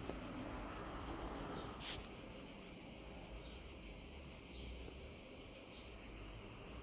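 Steady high-pitched drone of insects in the background, with soft rustling of cloth and thread as a needle is worked through linen in an embroidery hoop, and a short scratch about two seconds in.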